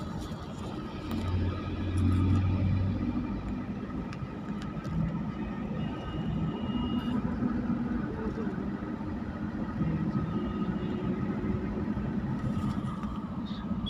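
Steady car engine and tyre noise heard from inside the cabin while driving in traffic, with a louder low rumble for a couple of seconds about a second in.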